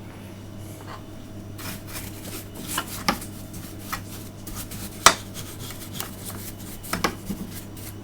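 Scattered sharp clinks and knocks of hard objects being handled, as parts and tools are worked on inside an opened LCD TV; the loudest knock comes about five seconds in, over a faint steady hum.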